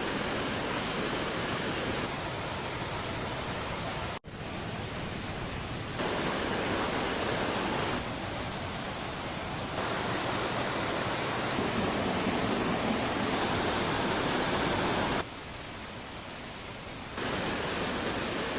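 Steady rushing of running water, such as a stream or small waterfall. It jumps up or down in level several times and briefly cuts out about four seconds in.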